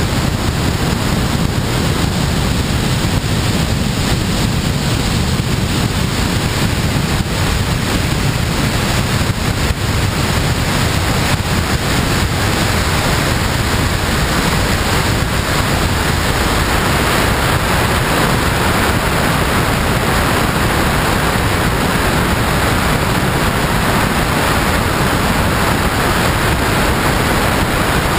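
Steady rush of airflow over a wing-mounted camera in flight: continuous wind noise on the microphone, heavy in the low end, turning a little hissier about halfway through.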